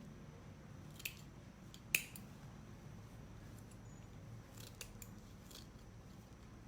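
Scissors snipping a few times at a craft table: short sharp clicks spaced irregularly, the sharpest about two seconds in, over a low room hum.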